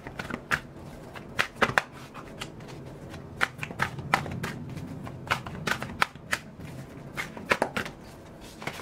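A deck of cards being shuffled by hand, giving irregular sharp flicks and clicks as the cards slap against each other.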